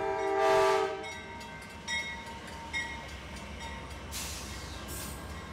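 Amtrak diesel locomotive sounding its horn in a short blast as it approaches, then the passenger train rolling past with a steady low rumble and two sharp metallic rings.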